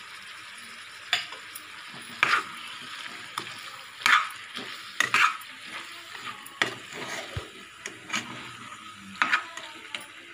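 A slotted metal spatula stirs chicken pieces and masala in an open aluminium pressure cooker, scraping and clanking against the pot about once a second at irregular intervals. Underneath, the chicken sizzles steadily as it fries in oil.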